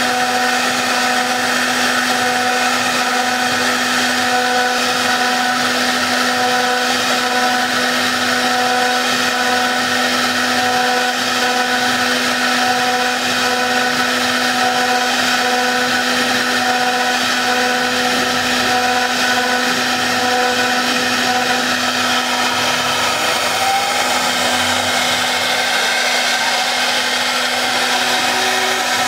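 4-axis CNC router spindle running at a steady speed with a constant whine, its bit carving a wooden car model with a hiss of cutting.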